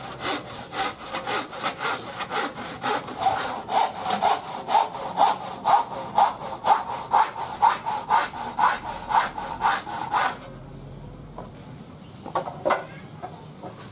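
Handsaw cutting through a wooden board by hand, with even back-and-forth strokes at about two and a half a second. The sawing stops about ten seconds in, and a few light knocks follow.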